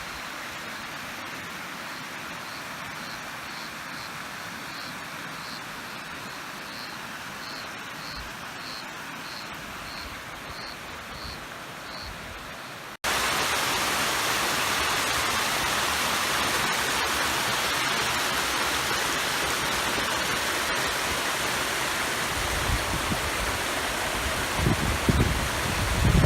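Waterfall rushing, a steady noise of falling water. A high chirp repeats about twice a second over it for the first several seconds. About halfway there is an abrupt cut to louder, closer rushing water, with low rumbling bumps near the end.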